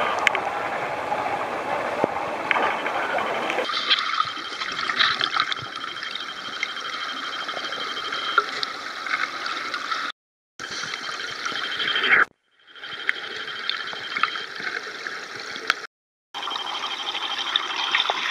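Water sloshing and splashing around swimmers at the surface of a pool. About four seconds in, it gives way to the muffled hiss and bubbling of a recording made underwater, with scattered small clicks. This is broken by three brief dead silences.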